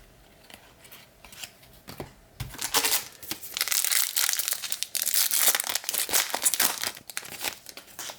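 A foil trading card pack wrapper being torn open and crumpled, a few small rustles at first, then loud, dense crinkling from about three seconds in until just before the end.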